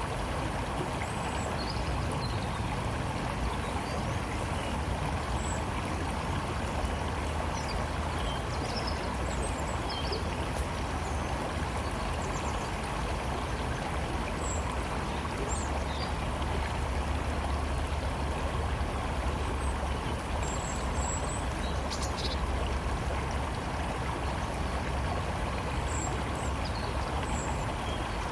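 A river flowing steadily, with short bird chirps dotted here and there above the rush of water.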